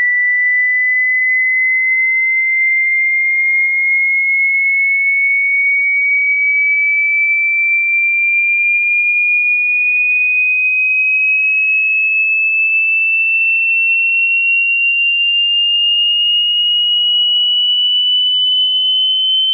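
A single pure sine test tone of a hearing test, gliding slowly and evenly upward in pitch at a steady loudness, high like a whistle.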